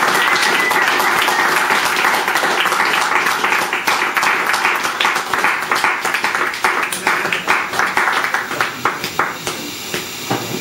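Small audience applauding, dense at first, then thinning to scattered claps that die away near the end.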